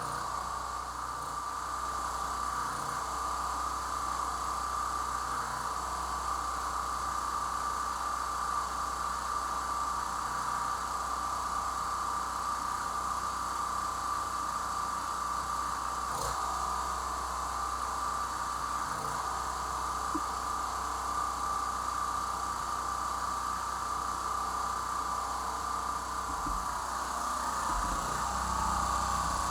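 Portable generator's small gasoline engine running at a steady speed.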